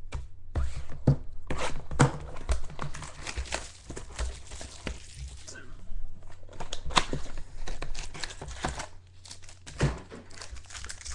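Trading-card packs and wrappers being handled and torn open: crinkling and tearing with scattered taps and clicks.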